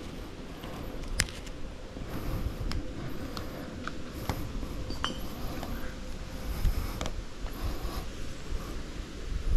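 Scattered light clicks and knocks, irregular and a second or so apart, over a low rumbling noise.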